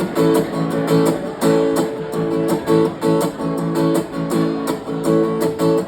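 Guitar strumming chords in a steady rhythm: the instrumental lead-in to a song, played live with no singing yet.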